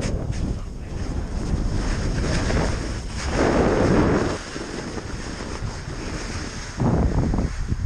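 Wind rushing over the microphone and a snowboard hissing through deep powder on a steep descent. There are louder swells about three and a half seconds in and again near the end.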